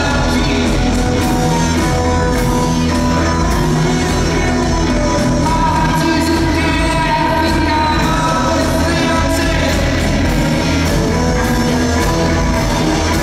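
Live psychedelic rock band playing loud, dense music: drums, electric guitars and keyboards under a sung vocal line.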